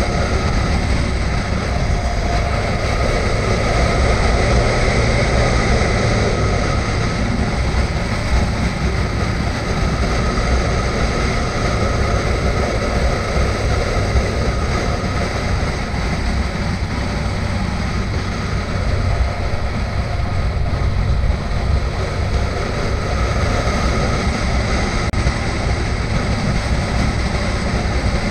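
Motorcycle riding at a steady cruising speed: the engine runs evenly under a constant rush of wind noise.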